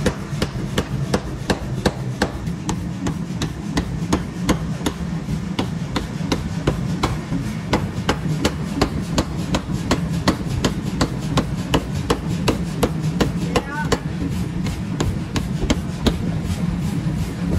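Power forging hammer rapidly pounding a red-hot bar of high-strength tank-armour steel on its anvil, drawing it out for an excavator bucket tooth: sharp, even blows about four a second over the steady hum of the running machine.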